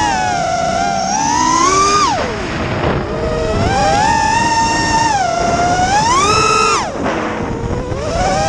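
FPV quadcopter's motors whining, the pitch rising and falling as the throttle changes, with steep drops in pitch about two seconds in and again near the end before climbing back up.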